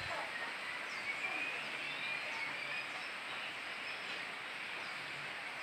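Steady hiss of rain with scattered short bird chirps.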